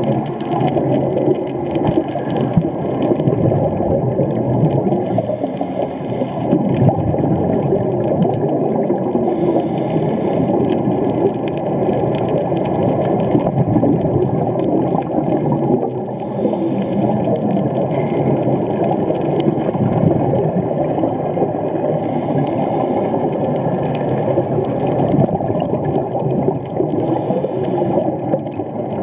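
Muffled underwater sound picked up inside a sealed camera housing: a steady low rumble of water with gurgling scuba exhaust bubbles that swell every few seconds.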